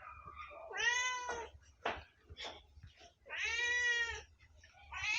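Domestic cat meowing three times in long, drawn-out meows, the last one still going at the end, with a few faint clicks between the calls.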